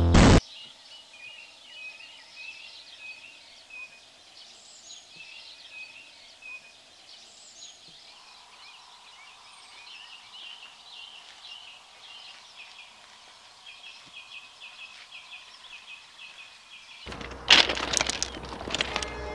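A brief, loud burst of digital glitch static, then quiet open-air background with small birds chirping steadily. About 17 seconds in, music swells in loudly and carries on with sustained notes.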